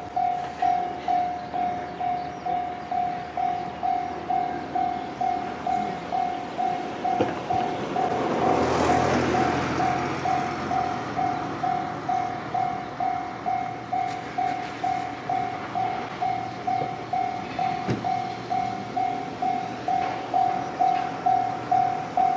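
Japanese railway level-crossing warning bell ringing steadily, a single high electronic tone repeated about twice a second. A train passes over the crossing about a third of the way in, its noise swelling and fading under the bell.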